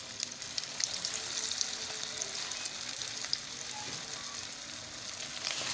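Chicken shami kabab patties frying in hot oil in a steel pan: a steady sizzle with many fine crackles.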